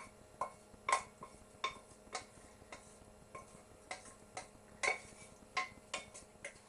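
A spoon clinking and knocking irregularly against the cookware while the cooked vegetable and bean mixture is spooned into an oven-proof baking dish: about fifteen sharp knocks, each with a brief ring.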